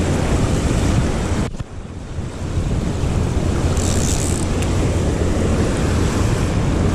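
Rough surf washing over the rocks, with wind buffeting the microphone. The noise drops sharply for a moment about a second and a half in, then builds back up.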